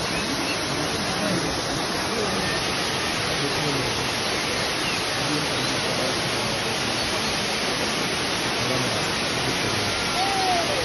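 Steady rush of a waterfall, an even noise with no breaks, with faint voices underneath.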